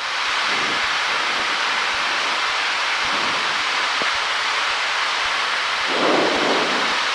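Steady rushing hiss of a Cessna 172's cabin noise heard through the headset intercom in flight, with a brief swell of lower noise about six seconds in.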